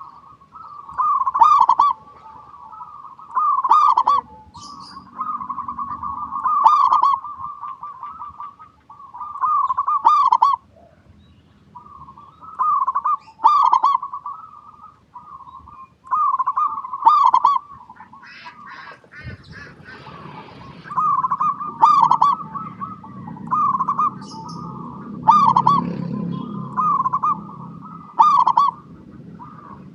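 Zebra dove (perkutut) cooing in repeated phrases of about a second each, roughly every two seconds. About two-thirds of the way through there is a short rasping noise, and a faint low hum sits underneath afterwards.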